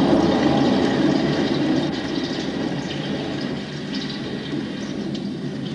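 Water splashing as a man washes his feet, louder in the first couple of seconds and then easing off.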